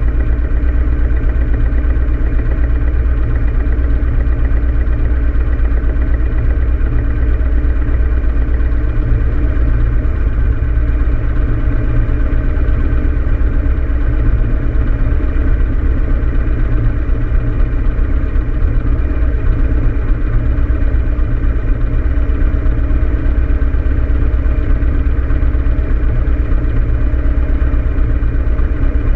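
Harley-Davidson Road King Classic's air-cooled V-twin engine idling steadily while the motorcycle stands in traffic, a low, even rumble with no revving.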